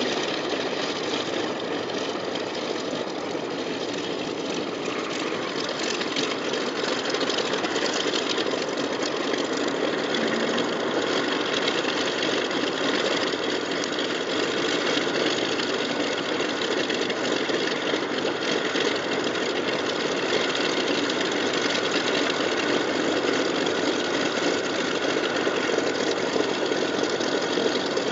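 Canadair CL-215's twin Pratt & Whitney R-2800 radial piston engines running steadily at low taxi power, a rough, even engine sound that grows a little louder after about six seconds.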